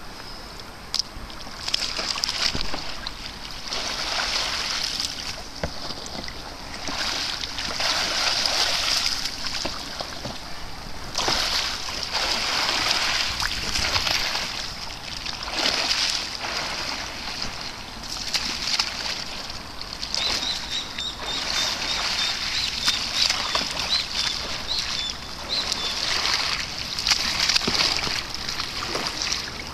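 Water splashing and sloshing as a kayaker rolls a red kayak over and back up again and again, with a fresh surge of splashing every few seconds as the hull and paddle go under and come up.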